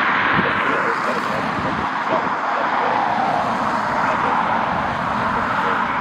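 Jet airliner engines heard as a steady rushing roar.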